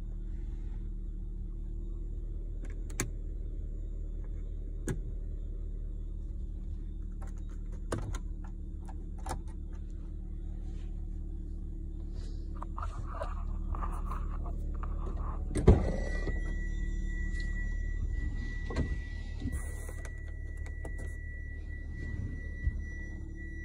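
Steady low hum of a car's running engine heard inside the cabin, with scattered sharp clicks. About two-thirds of the way through comes a loud click, and then a steady high-pitched tone sounds continuously.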